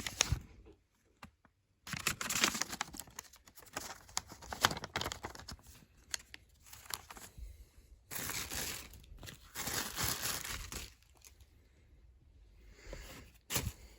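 Packaging being crinkled and torn open by hand, in irregular rustling bursts that pause near the end and come back briefly.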